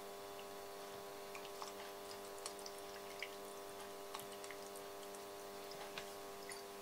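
Apple vinegar trickling from a bottle onto chopped vegetables in a blender jar: faint, scattered drips and small splashes, over a steady low hum.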